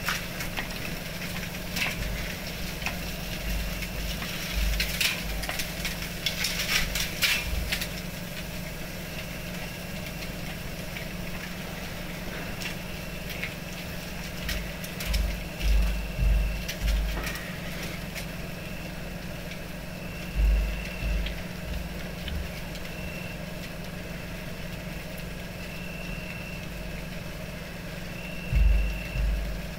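Burning painted canvas and its wooden frame crackling, with bursts of crackles a few seconds in and again about halfway through. Underneath runs a steady low hum with low thumps now and then.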